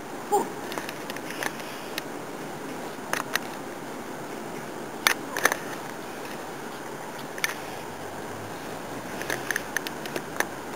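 Steady background hiss with scattered sharp clicks and light rustles, a cluster of them near the end.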